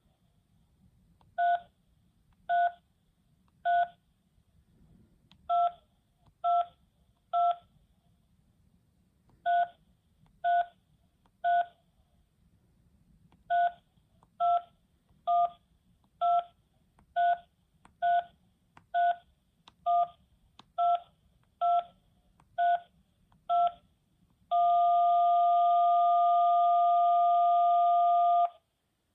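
Telephone keypad touch-tones (DTMF): about twenty short two-note beeps pressed in small groups of two to nine. Near the end one key is held down for a steady two-note tone of about four seconds, which then cuts off.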